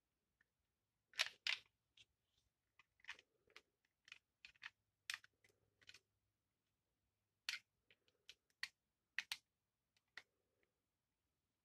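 Faint, scattered clicks and taps of hands handling the plastic handle of a Zhiyun Smooth Q smartphone gimbal and its USB charging cable, the loudest pair of clicks about a second in.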